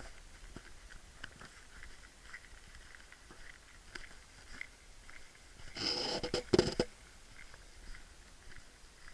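Footsteps and handling noise from a camera carried on a walk: soft patter of steps on the lane, with a louder cluster of scraping noise about six seconds in that lasts about a second.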